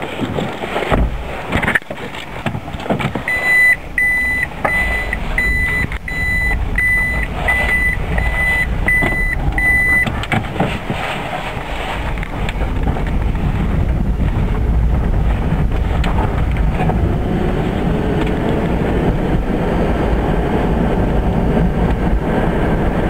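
A few clunks, then about a dozen evenly spaced high beeps, under two a second, typical of a Toyota Prius's in-cabin reverse warning. The car then pulls away and a low road and tyre rumble builds with speed, with no engine sound: the Prius has an empty engine block and drives on battery power alone.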